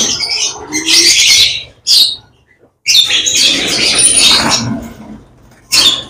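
A flock of lovebirds calling in loud bursts of shrill chattering, with a brief lull about two seconds in.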